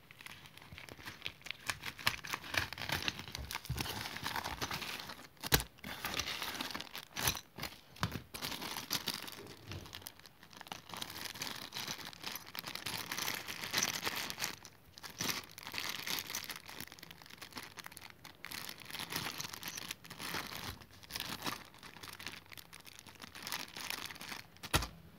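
Clear plastic packaging bags crinkling and rustling as they are handled and pulled open, with many small clicks. A sharper knock comes about five and a half seconds in, and another near the end.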